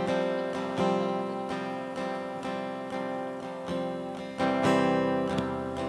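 Acoustic guitar playing slow, ringing chords, a new chord struck every second or so.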